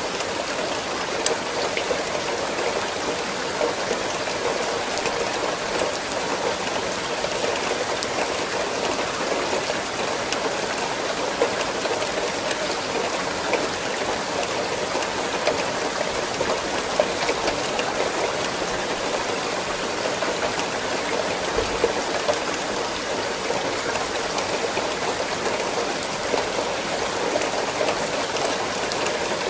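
Steady rain falling, an even hiss with occasional sharper drops ticking on a surface.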